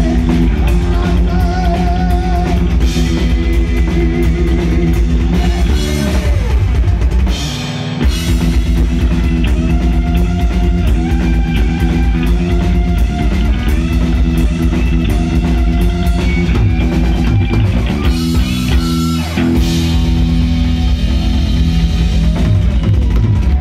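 Heavy metal band playing live: distorted electric guitars and bass over a pounding drum kit, with long held notes that waver in pitch. The sound briefly thins out about eight seconds in before the full band comes back.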